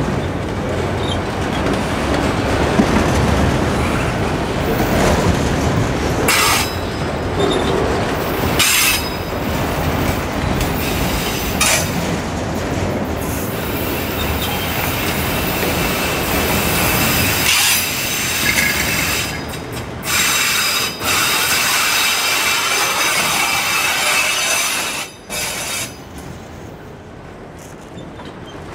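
Cars of a long auto-rack freight train rolling past. The wheels clatter with occasional sharp knocks, and a steady high wheel squeal builds through the middle. The noise drops off sharply near the end.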